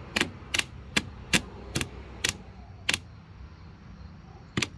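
Starter solenoid on a John Deere LT150 riding mower clicking repeatedly with no engine cranking: seven sharp clicks about half a second apart, then one more near the end. The starter motor does not turn, which the owner believes is because its windings have died.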